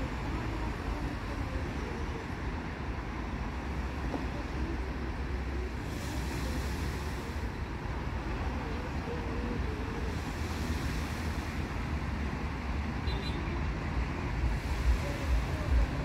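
Small waves breaking and washing over a rocky shelf and sand, the hiss of the surf swelling about six seconds in and again about ten seconds in, under a steady low rumble of wind on the microphone that buffets more strongly near the end.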